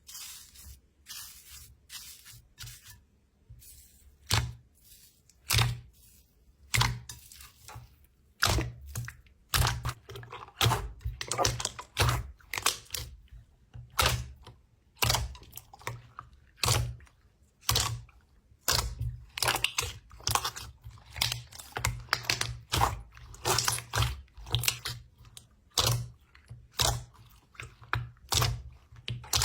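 Cotton-candy slime being squeezed and stretched by hand, giving a run of sharp crackling pops and squishes. They are sparse and soft for the first few seconds, then come thick and irregular, several a second.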